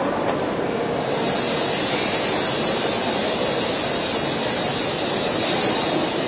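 Busy railway station hall ambience: a steady rushing noise of the hall, joined about a second in by a loud, high, even hiss.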